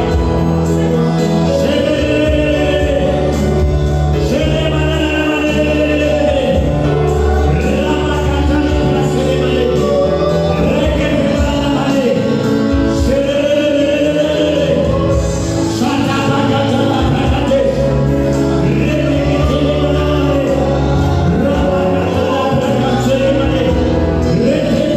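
Gospel worship music: a choir singing over a steady instrumental accompaniment with sustained bass notes.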